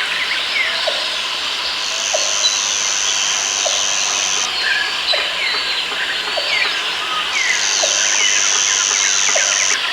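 Jungle ambience: many birds chirping and whistling over one another, with a short low note repeating about once a second. A steady high buzz comes in twice, for a few seconds each time.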